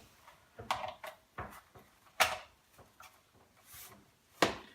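Short knocks and clicks of an extension lead and plug being handled and set up, about five in all, with the sharpest clack about two seconds in and another near the end.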